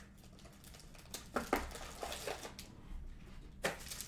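Faint crinkling and rustling of card packaging being handled, with a few soft clicks scattered through.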